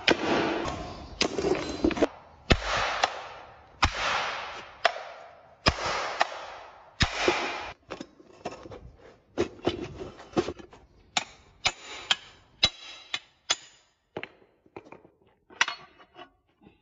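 Repeated metal knocks and clangs on an electric motor's finned housing and stator during dismantling. The first several strikes ring on for a moment, then after about eight seconds the knocks come shorter and quicker, thinning out near the end.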